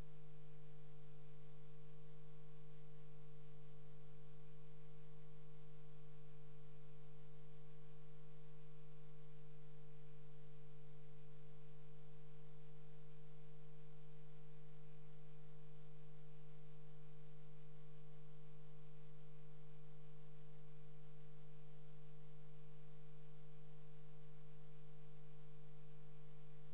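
Steady electrical hum made of several constant tones, the lowest one strongest, unchanging throughout, with no speech or other sound over it.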